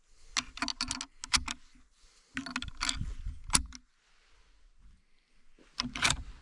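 Footsteps crunching through dry leaves and twigs on the forest floor, in three short bursts of crackling separated by pauses.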